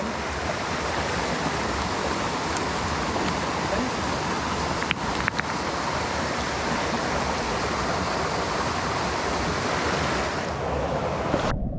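Mountain stream rushing over rocks in a steady wash of water noise, with a couple of faint clicks about five seconds in. Near the end the sound cuts abruptly to a dull, muffled underwater rumble.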